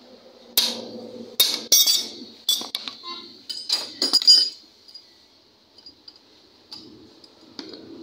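Steel adjustable wrenches clinking against the axle nut and hub of an auto-rickshaw wheel as the hub nuts are set and tightened: a quick run of sharp metallic clinks in the first half, then only a couple of faint clicks.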